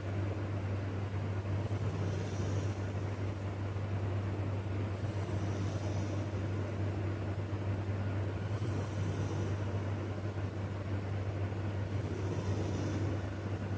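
A sleeping person's breaths, heard as a faint hiss recurring about every three and a half seconds, under a steady low hum and rumble that is the loudest sound.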